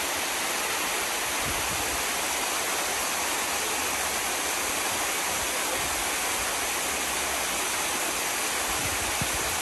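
Waterfall cascading over rock terraces: a steady rush of water.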